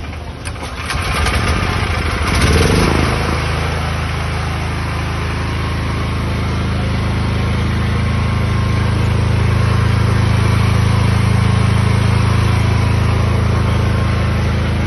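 A 7 kVA petrol generator's air-cooled engine is started on its recoil pull starter. It catches about two to three seconds in with a brief surge in pitch, then settles into a steady, even run.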